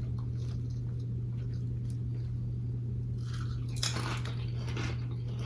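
Chewing thin barbecue potato chips, with a cluster of crisp crunches about three to five seconds in, over a steady low hum.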